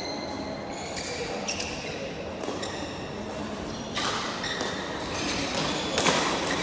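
Badminton court sounds: short high squeaks of court shoes on the floor and sharp smacks of rackets hitting shuttlecocks, the loudest about 4 and 6 seconds in, echoing in a large hall.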